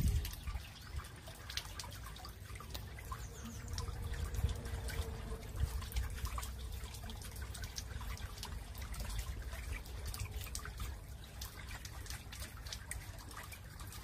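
Boulder water fountain: water trickling down wet stones into a shallow pool, with many small irregular drips and splashes over a low rumble.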